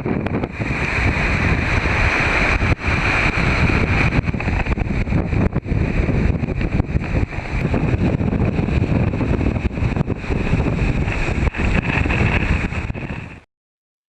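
Hurricane winds buffeting the microphone in a heavy, gusting rumble with frequent clicks and pops. The sound cuts off abruptly near the end.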